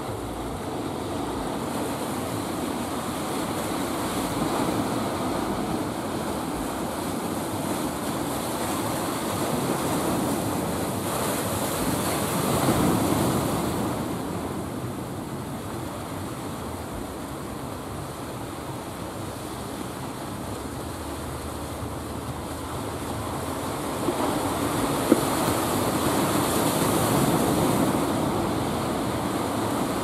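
Sea waves breaking and washing on the shore in a steady rush, surging louder twice, about 12 seconds in and again later on, with wind buffeting the microphone. A single sharp tap sounds partway through the second surge.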